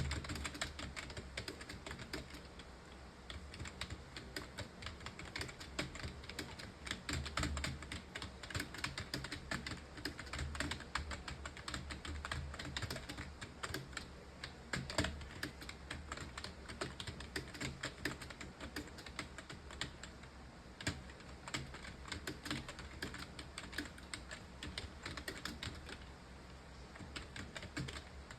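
Fast, continuous typing on a computer keyboard, many key clicks a second, easing off briefly a couple of times.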